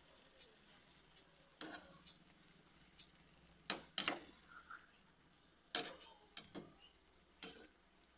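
A metal cooking spoon clinking and scraping against a frying pan as squid pieces are stirred, with a handful of sharp, irregular clanks.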